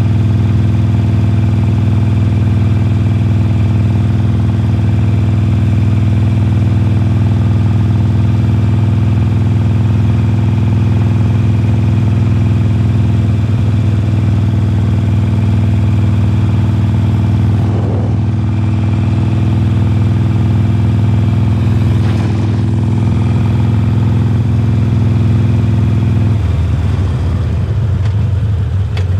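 2020 Harley-Davidson Forty-Eight's air-cooled 1200 cc V-twin, fitted with Khrome Werks slip-on mufflers, running at a steady cruise. Near the end the steady note falls away and turns uneven.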